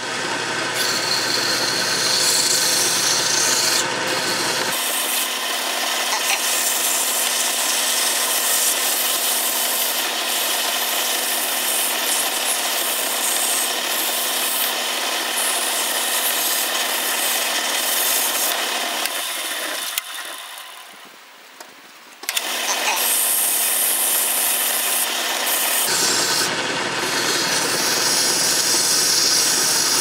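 100-grit sandpaper rubbing against a small wooden knob turning on a wood lathe: a steady rasping hiss over the running lathe. The sound drops away for a couple of seconds about two-thirds of the way through, then the sanding resumes.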